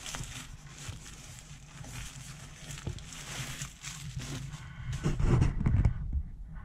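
Plastic packaging and bubble wrap rustling and crinkling as hands work inside a cardboard box, with a few louder dull bumps about five seconds in.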